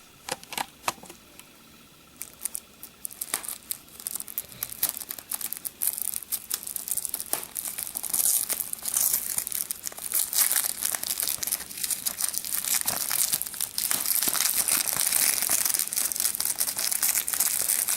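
Plastic packaging on a DVD case crinkling and tearing as it is pulled open. The crackling is sparse at first and becomes dense and continuous from about six seconds in.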